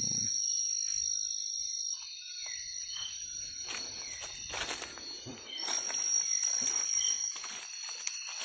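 Rainforest insects keep up a steady, high-pitched drone, with short falling chirps recurring over it. A spell of rustling comes about four to six seconds in.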